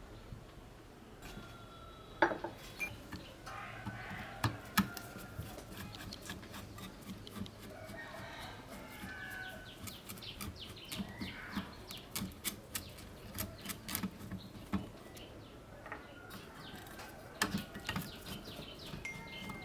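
Scattered clicks and knocks of hand work on an old metal lamp, loudest about two seconds in, with chickens clucking in the background.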